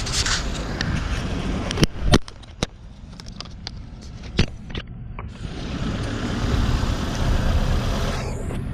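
1996 Toyota Corolla's 1.8 L 7A-FE four-cylinder engine running with a cylinder 1 misfire, caused by a bad spark plug wire arcing. A few sharp clicks come in the first half, and a hiss builds over the last few seconds.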